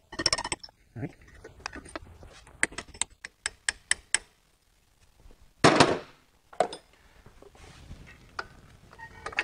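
Hammer tapping a metal pick to drive the pad retaining pin out of a Porsche Macan's front brake caliper: a run of quick, sharp metal taps over the first four seconds, then one louder, longer burst of noise about six seconds in.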